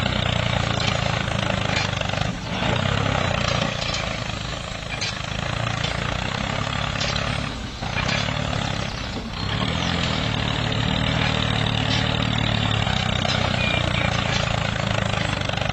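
Steady running of the mini tractor's motor as it pulls the cultivator through sand: a low hum under a wide hiss, dipping briefly three times.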